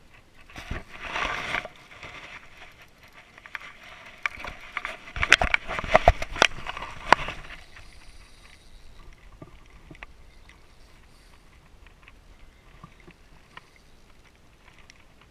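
A hooked fish splashing and thrashing at the water surface during the fight, followed by a flurry of sharp knocks and clatter in the middle, then faint ticks.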